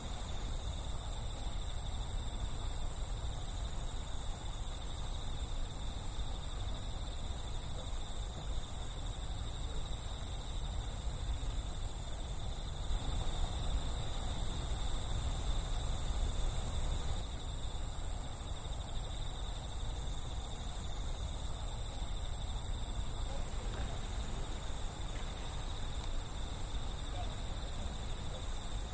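Night insects chirping steadily in a continuous high-pitched chorus, over a low, even rumble of background noise.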